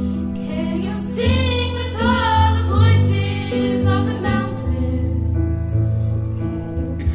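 A female singer sings a solo song into a microphone over sustained instrumental accompaniment. Her phrase comes in about a second in with a wavering, held tone and drops back after a few seconds, leaving the accompaniment.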